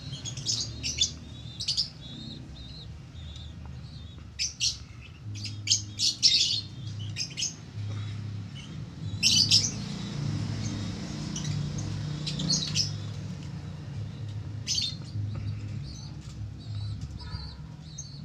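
Lovebirds chirping: short, sharp high calls that come in quick clusters, over a low steady hum.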